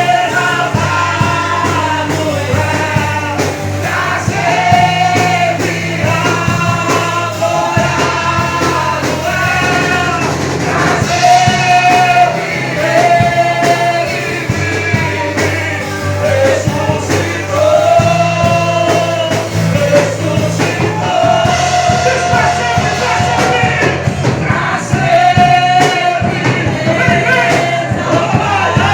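Church worship band playing and singing, a voice carrying the melody over a sustained bass line and a steady beat.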